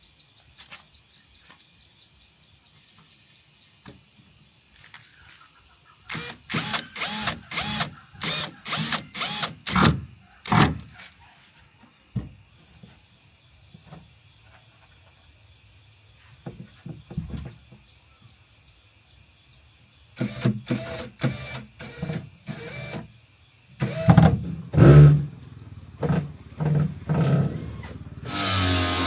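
Cordless drill run in short trigger bursts, driving screws into thin sheet-metal boat panels: a run of about ten quick bursts, then quiet, then two more clusters of bursts later on.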